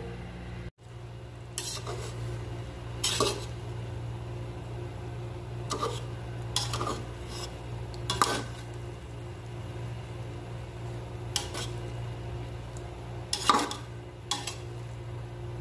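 Slotted metal spatula scraping and clinking against a metal pot as cooked biryani rice is turned over, in about eight separate strokes.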